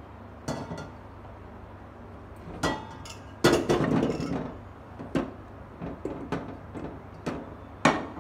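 Raw potatoes tipped from a ceramic plate into a metal cooking pot: a clattering rush of knocks as they tumble against the pot, then a handful of separate knocks as the last ones drop and settle, with a sharp clack near the end.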